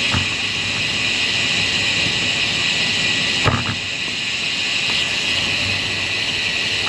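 Steady rushing wind and tyre noise from a road bike in motion, picked up by a bike-mounted action camera. A short knock comes about three and a half seconds in.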